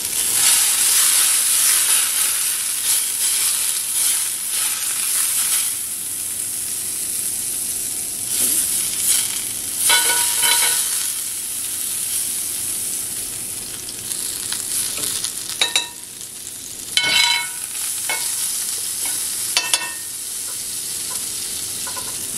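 Margarine sizzling as it melts in a hot cast-iron skillet, loudest in the first few seconds and easing off after. A metal spoon stirs it around the pan, with a few short metallic clinks against the iron.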